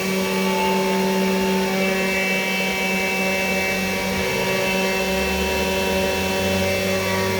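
Spindle motor of a CNC 3018 desktop router running steadily while milling brass, a constant whine with fainter stepper-motor tones coming and going as the axes move. A deeper hum comes in about halfway through.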